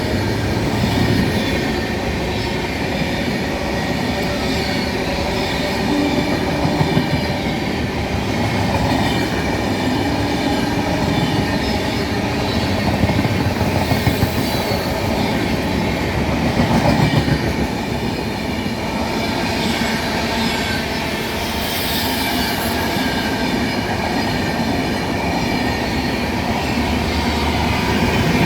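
Goa Rajdhani passenger train rolling past at speed behind a WAP7 electric locomotive: wheels clattering over the rail joints in a steady stream of clicks under a continuous rumble, with some steady whining tones coming and going.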